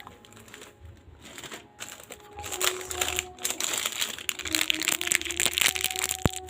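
Plastic or paper packaging crinkling and crackling as it is handled during unboxing, growing louder about two and a half seconds in, with a sharp click near the end.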